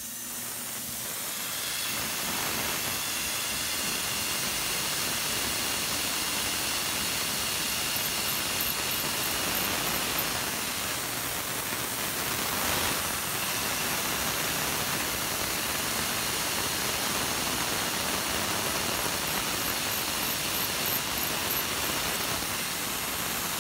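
Tormach PCNC 770 CNC mill drilling holes in an aluminum pallet with a 13/64-inch drill bit, under a steady hiss from the coolant spray nozzle aimed at the bit. The hiss comes up at the start and then holds steady.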